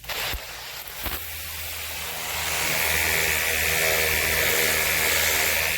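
Battery-powered Ontel Turbo Jet HydroX5 Pro cordless pressure washer starting up after a couple of clicks: its pump motor hums steadily while the jet of water hisses against house siding, the spray building up over the first couple of seconds and then holding steady.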